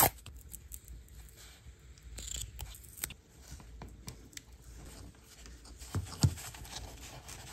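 Faint rustling and small clicks of cloth fabric tape being wrapped by hand around a drone arm's motor wires, with one sharper tap about six seconds in.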